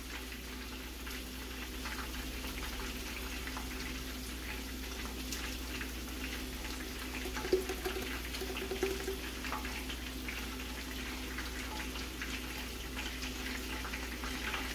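Chicken thighs frying in oil in a cast-iron skillet: a steady sizzle with scattered small pops and crackles over a low steady hum.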